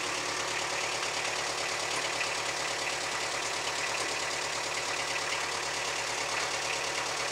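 Mini tractor's engine running steadily at low revs as the tractor creeps forward pulling a trailer loaded with bricks.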